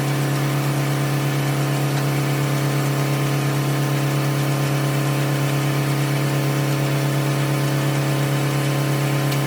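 Tractor engine running at a steady speed, driving a 1950 Corley circular sawmill, with one even, unchanging tone.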